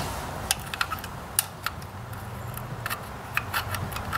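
Light, irregular clicks and taps of a plastic electronic ignition module being handled and tried against the metal distributor plate, over a faint steady low hum.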